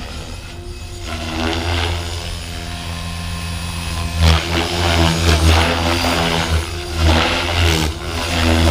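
Blade Fusion 550 electric RC helicopter flying: a steady hum of the 1350 kV motor and spinning rotor, with rotor-blade whooshes swelling and falling in waves from about four seconds in as it is flown hard.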